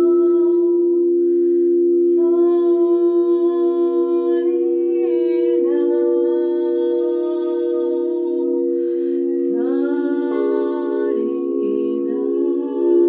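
Wordless vocal toning: a voice sings long, gliding sustained notes over a steady held drone. Breaths come in at about two seconds and again at about nine and a half seconds.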